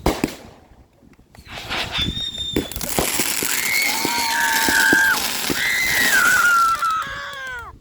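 Consumer fireworks going off at close range: a sharp pop, then a loud hissing rush full of shrill whistles and scattered pops, with several whistles falling in pitch near the end.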